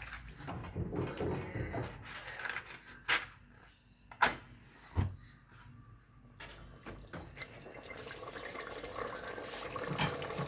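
Kitchen cooking sounds at a pot of daal: a few sharp knocks and clicks of a utensil, then, from about two-thirds of the way in, a steady watery bubbling that grows louder.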